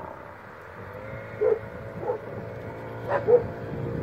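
A dog barking four short barks, the last two in quick succession about three seconds in, over a steady low hum.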